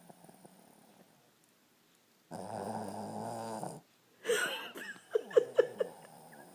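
A dog snoring: one long, loud, rasping snore about two seconds in, lasting about a second and a half. A quick run of short, sharp sounds follows, louder than the snore.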